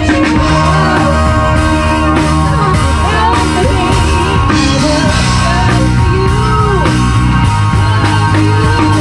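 A rock band playing a song, with drum kit, bass and guitar, and a melody line sliding up and down in pitch.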